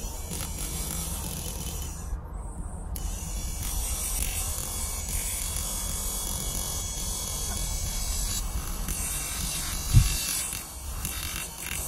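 Small brushed DC motor held in the hand, running with a steady high whir that cuts out for about a second about two seconds in. A single loud thump about ten seconds in.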